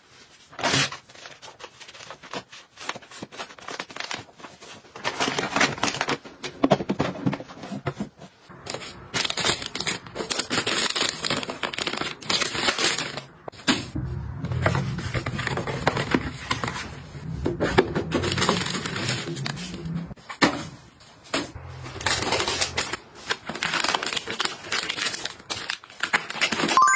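Plastic and cardboard packaging rustling and crinkling as it is handled, with frequent irregular taps and clicks as boxes and packs are set into and pressed onto plastic holders.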